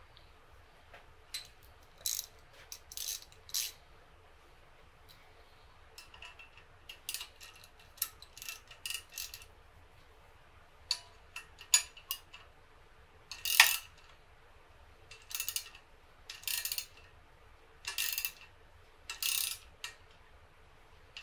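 Ratcheting wrench clicking in short bursts with pauses between, with metal-on-metal clinks of the tool, as the nut on a spherical-bearing removal tool is run down to press the bearing out of its housing.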